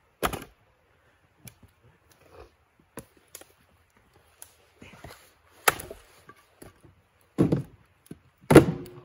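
Axe chopping firewood on a block: a handful of sharp, irregularly spaced chops and wooden knocks, the loudest near the end, as the wood splits and the pieces fall.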